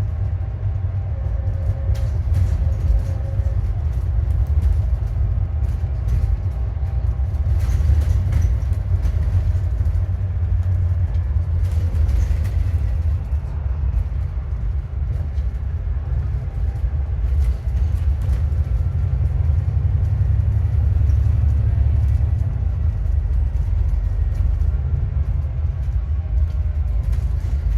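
Inside an Alexander Dennis Enviro400MMC double-decker bus under way: a steady engine and road rumble, with faint whining tones above it and occasional rattles. The whine is the bus's failing alternator.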